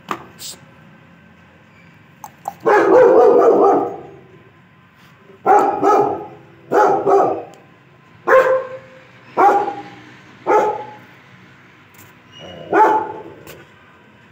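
A dog barking, about nine barks at uneven spacing of a second or so, the first one drawn out longer than the rest.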